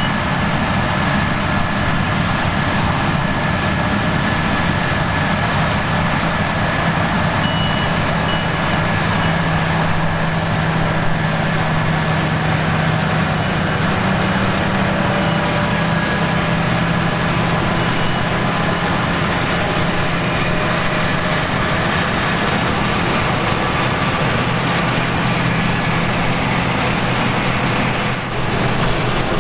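Heavy diesel farm machinery running steadily with a constant drone, with a few short, high warning beeps about eight seconds in.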